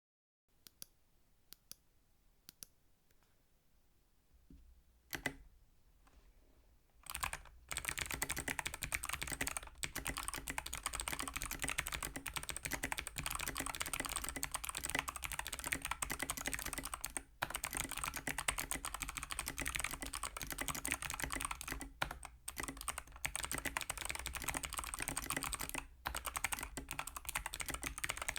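Typing on a mechanical keyboard fitted with Kailh Box Navy clicky switches, each press giving a crisp, sharp click from the switch's thick click bar. A few separate key presses come first, then fast continuous typing from about seven seconds in.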